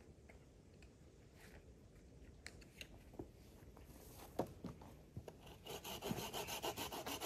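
Hand saw cutting wood in quick rasping back-and-forth strokes, starting about five and a half seconds in after a few knocks as the wood is set in place.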